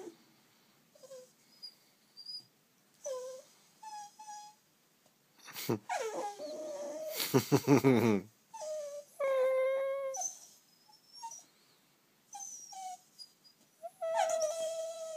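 A dog whining in a string of short, high whimpers, with a louder, lower drawn-out call about halfway through and a longer whine near the end.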